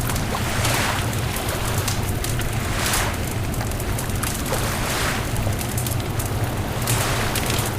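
Beach bonfire crackling and popping with many quick snaps, over a steady low rumble, with a broad hissing swell about every two seconds.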